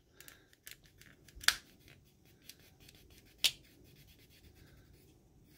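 Cloth rubbed firmly against the plastic chest of an action figure: faint scratchy rubbing with scattered small clicks, and two sharper clicks about a second and a half in and about three and a half seconds in.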